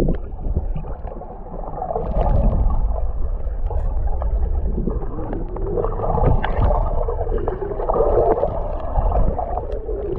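Underwater sound through a submerged action camera's housing: a muffled, steady low rumble and gurgle of seawater with a wavering hum, and a few faint clicks.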